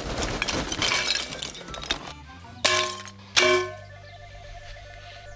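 Lump charcoal poured from a bag into a perforated steel charcoal basket: a dense clattering rattle for about two seconds. Then two sharp knocks with a short metallic ring, under a second apart, as two splits of wood are dropped onto the charcoal. Background music plays under the second half.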